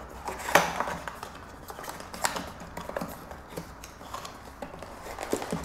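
Small cardboard product box being opened by hand: its flap pulled open and an inner cardboard box slid out, giving irregular scrapes, taps and rustles of card. The loudest scrapes come about half a second in and a little after two seconds in.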